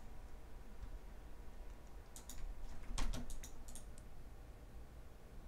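Computer mouse button clicks, a few at a time in small clusters, with a heavier knock about three seconds in.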